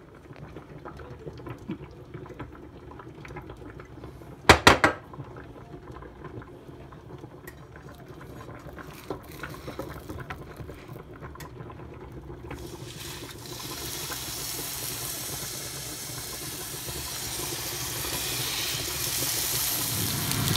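Ground-beef patties sizzling in hot oil in a frying pan. The sizzle starts about two-thirds of the way through and grows steadily louder. Before it come light kitchen handling clicks and a short, loud clatter about four seconds in.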